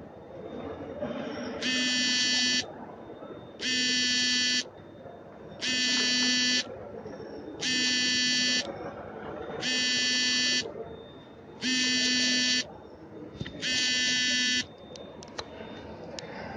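An electronic buzzer sounding in one-second tones, one every two seconds, seven times in a row, over steady background noise. A few clicks follow near the end.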